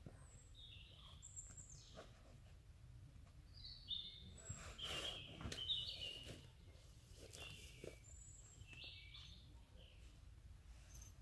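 Woodland songbirds calling in short, high chirps and whistled notes scattered throughout, with a few faint clicks and knocks about halfway through.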